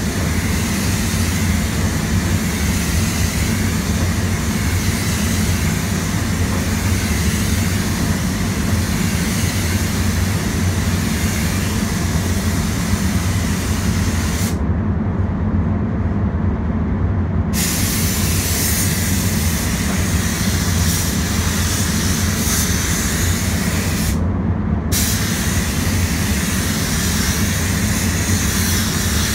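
Air spray gun hissing as clearcoat is sprayed, over the steady hum of the spray booth's fans. The gun's hiss stops for about three seconds halfway through and again briefly near the end, leaving only the fan hum.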